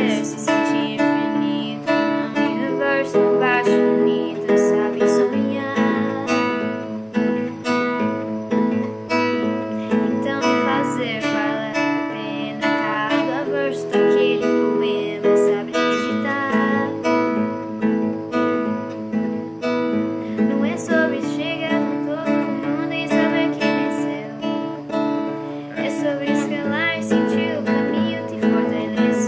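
Nylon-string classical guitar strummed in a steady chord pattern, accompanying a woman singing a ballad in Portuguese.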